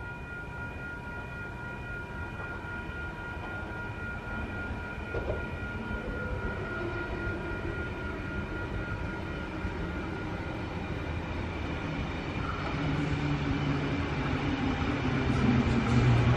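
Electric passenger train approaching the platform, its low motor hum and wheel noise growing steadily louder over the last few seconds. A steady high whine in the first half fades away.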